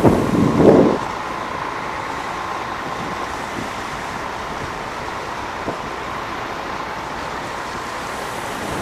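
A road vehicle running steadily, with a faint steady whine in the background. A louder rush of noise comes in the first second.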